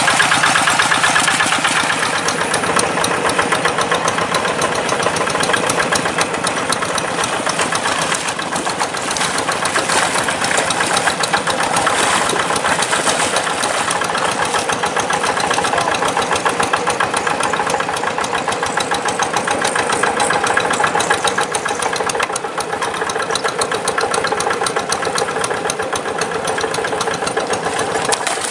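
Kubota RD85 single-cylinder diesel of a Quick G1000 Boxer two-wheel hand tractor running steadily under load as it works through deep rice-paddy mud, with a rapid, even firing beat.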